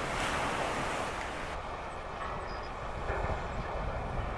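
Wind buffeting the microphone in a steady low rumble, over the wash of choppy harbor water.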